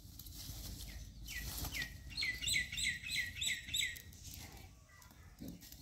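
A bird calling a quick run of short, repeated chirping notes, about three a second, starting a little over a second in and stopping about four seconds in, over faint low background noise.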